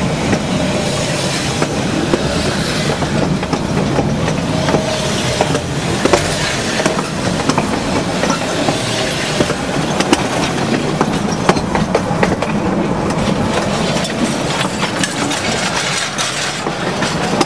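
Railroad cars rolling directly overhead, their steel wheels on the rails making a steady rumble and rattle with many irregular clicks and knocks.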